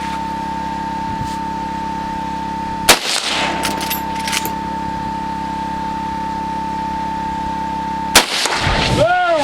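Two .30-30 rifle shots about five seconds apart, each a single sharp crack. A second or so of crackling rush follows the first shot. A steady hum runs underneath.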